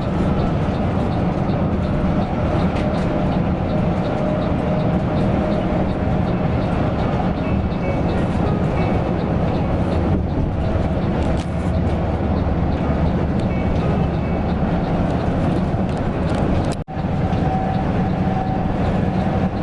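Mercedes-Benz OC 500 RF 2542 coach under way: a steady engine and road drone with a heavy low rumble. There is a brief dropout about 17 seconds in.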